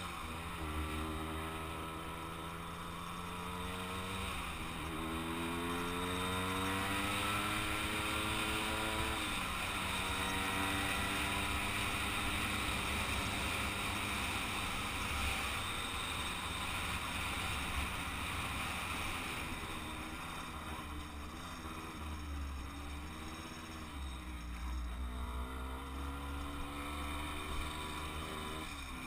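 Kreidler two-stroke moped engine under way. Its pitch climbs and drops back at each of three upshifts over the first ten seconds, then holds steady at cruising speed. About two-thirds of the way in it sags and wavers as the moped slows, and it picks up again near the end. A low wind rumble sits on the microphone.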